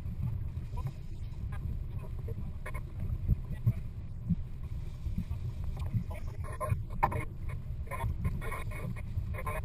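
Steady low rumble of an offshore sport-fishing boat on open water, with scattered clicks and knocks that come more often in the second half.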